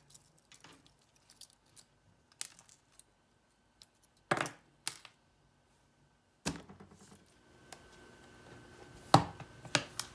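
Scattered light clicks and taps of small plastic and metal parts being handled, from the opened iPod Classic on the work surface, with sharper pairs of clicks about four seconds in and near the end.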